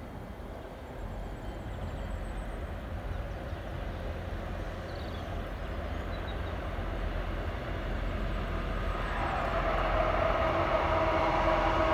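Freight train hauled by two BLS Cargo electric locomotives approaching on the line, its rumble growing steadily louder. About nine seconds in, a steady whine of several tones joins it as the locomotives draw near.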